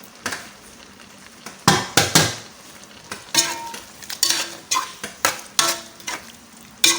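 A spoon stirring and scraping in a pot of egusi soup, mixing in blended pepper and crayfish. There are a few quiet taps at first; the scraping strokes come at irregular intervals from a little under two seconds in, roughly two a second.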